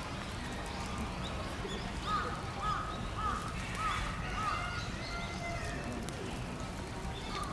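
Giant panda calling: a run of short, high, arched chirps, about two a second, over a steady low rumble.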